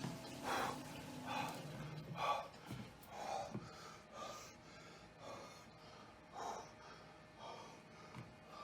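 A man breathing heavily in gasping breaths, about one a second. A low steady hum stops about a second and a half in.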